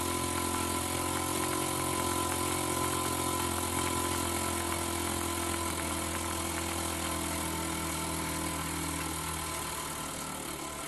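Small model steam engine running on steam from a cheap household steam cleaner set to its lowest heat, a steady mechanical hum over a hiss of steam, easing a little quieter over the last few seconds as it is turned right down.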